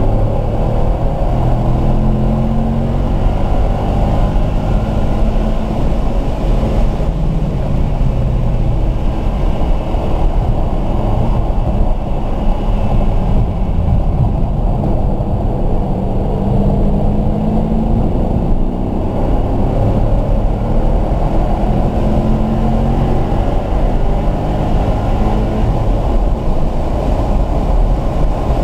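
Car engine under hard track driving, heard from inside the cabin: the revs rise and fall several times as it brakes for a corner and then accelerates hard down a straight, over steady road and wind noise.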